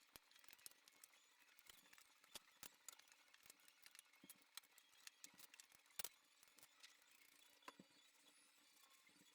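Near silence with faint, scattered clicks and taps from handling things while cleaning the outside of a fridge, one slightly sharper click about six seconds in.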